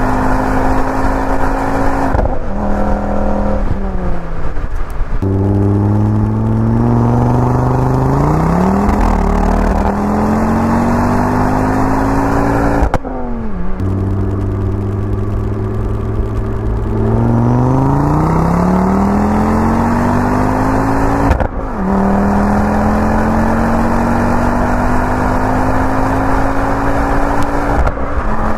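Car engine and exhaust running under changing throttle: the engine note holds steady, climbs in long rises, and drops sharply twice, about 13 and 21 seconds in, with a brief dip in loudness each time.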